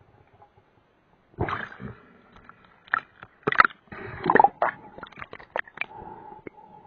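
Water sloshing and gurgling, starting suddenly about a second and a half in, followed by a string of sharp clicks and knocks.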